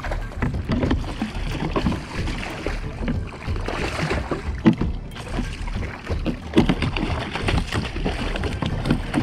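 A hooked sierra (snoek) thrashing and splashing at the surface right beside a kayak: an irregular run of water splashes, with the loudest about halfway and two-thirds of the way through.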